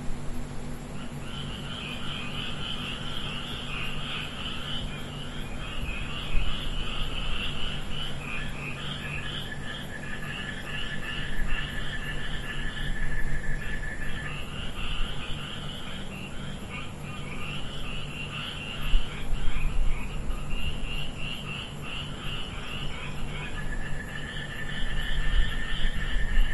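A dense night chorus of small calling animals: many rapid, pulsed calls overlap without a break. A steady high tone joins in about a third of the way through, stops, and comes back near the end, over a low hum.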